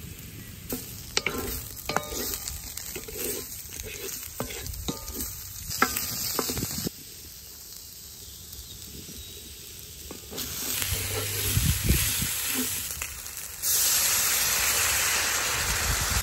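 Vegetables sizzling in a hot cast-iron pan as they are stirred, with scattered clicks and scrapes of a utensil against the pan. About three-quarters of the way through, a much louder steady hiss starts suddenly as liquid goes into the hot pan and boils off in steam.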